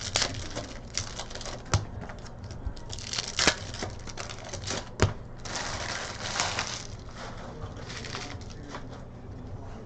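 Packs of trading cards being opened and the cards handled: crinkling and tearing of foil pack wrappers, with scattered sharp clicks and taps from the cards. The longest stretch of crinkling comes a little past the middle.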